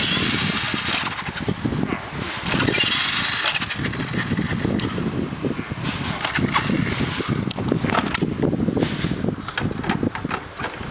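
Remote-control truck driving, its motor running hard in repeated surges, loudest at the start, about 3 s in and about 6 s in, with rattling and crackling from the truck.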